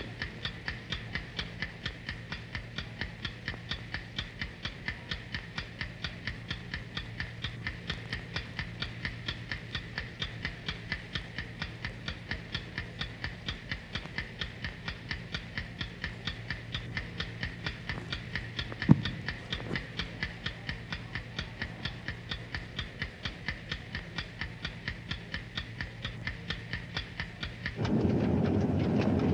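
A clock ticking steadily and evenly over a low, steady hum. Near the end a louder rumbling sound comes in.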